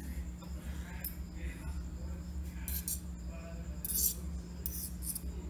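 Steel kitchen knife scraping and clinking as chopped jalapeños are pushed off its blade. There are a few short scrapes, mostly in the second half, over a steady low hum.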